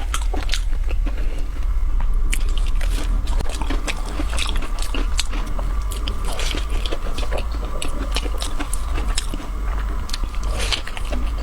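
Close-up crunching and chewing of crisp pumpkin biscuits, with many sharp crunches in quick, irregular succession over a steady low hum.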